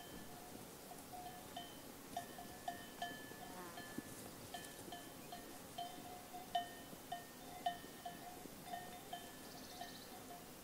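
Bells on grazing sheep ringing and clanking irregularly, several strikes a second, each with the same few ringing tones, over faint outdoor background noise.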